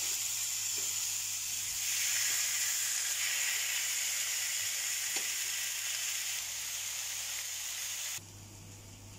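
Beef steaks sizzling on a ridged grill pan: a steady high hiss of searing meat, with a few faint ticks, that stops abruptly near the end.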